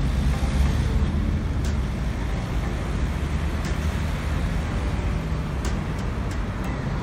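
Road traffic with cars and buses running and passing, a steady low rumble of engines and tyres.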